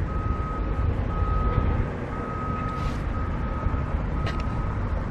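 Construction vehicle's reversing alarm beeping, long single-pitch beeps about once a second with short gaps, over a low rumble; the beeping stops near the end.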